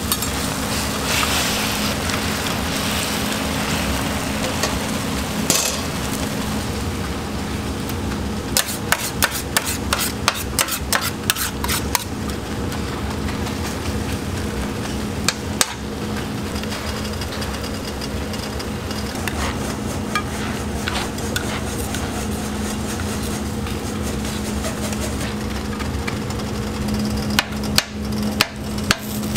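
Egg and shredded vegetables sizzling on a flat-top griddle while metal spatulas scrape and tap on the steel plate. Runs of sharp taps, several a second, come from about eight to twelve seconds in and again near the end, where the edge of a square scraper chops down into the cabbage, carrot and ham mixture. A steady low hum runs underneath.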